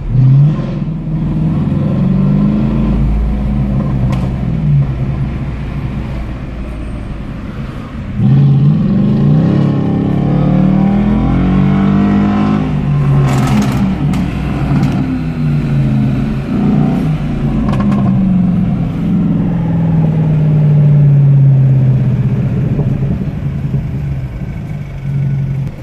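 Mercedes-Benz C63 AMG Black Series' 6.2-litre naturally aspirated V8 exhaust revving and accelerating in repeated bursts, its pitch climbing and dropping again and again. It gets suddenly louder about eight seconds in, and a few sharp cracks cut through.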